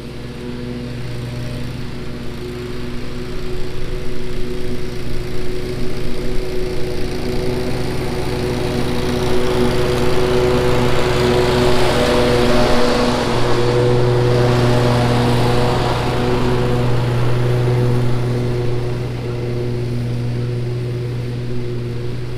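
Exmark Vantage mower with a mulching kit running steadily while cutting grass, a steady engine hum under the hiss of the blades. It grows louder around the middle, then eases off again.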